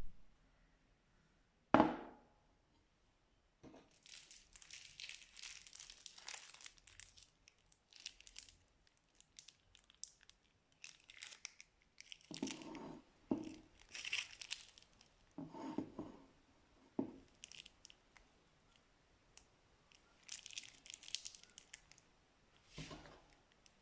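Plastic piping bags crinkling and tearing in irregular bursts as they are handled, with a single sharp knock a couple of seconds in and a few duller, deeper handling sounds partway through.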